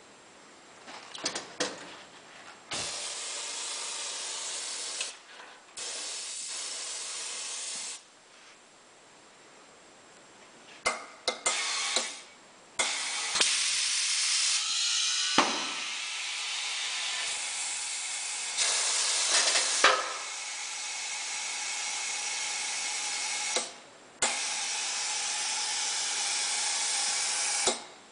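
Ahcon automatic tyre inflation station blowing compressed air into a car tyre: a steady hiss in several bursts of a few seconds each, broken by short pauses and sharp valve clicks, while the tyre pressure climbs toward its set value.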